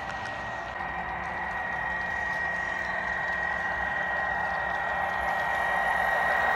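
HO scale model train running past: faint clicking over the rails and a steady high whine, growing louder as the sound-equipped GP35 locomotive approaches.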